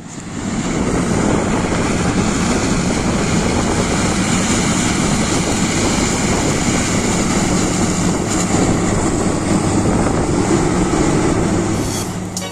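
Claas Medion 340 combine harvester running at work in a maize field, a steady, loud drone of its engine and threshing machinery. The sound fades in over the first second and eases off near the end.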